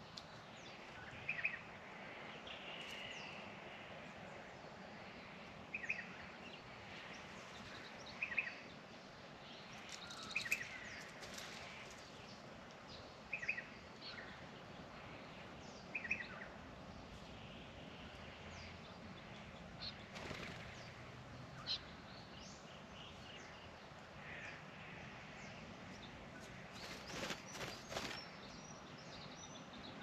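Birds at a birdbath: short chirping calls repeated every two to three seconds, with a few brief noisy flurries of wing flapping and splashing, the longest near the end.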